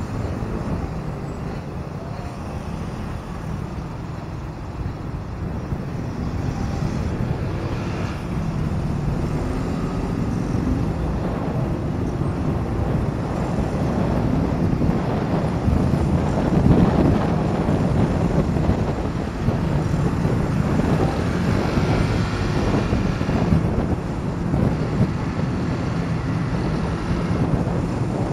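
Motorcycle engine running on the move, its pitch rising and falling with the throttle, over wind on the microphone and the hum of surrounding road traffic.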